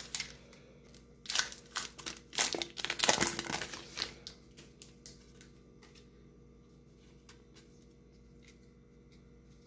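Foil wrapper of a Pokémon card booster pack crinkling and tearing open, a quick run of crackles lasting about three seconds, followed by a few faint ticks.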